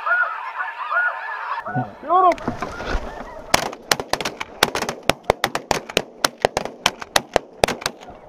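Snow geese calling overhead, a flock's repeated arched calls that grow louder about two seconds in. From the middle on, several hunters' shotguns fire a rapid, uneven volley of some twenty sharp shots over the calling.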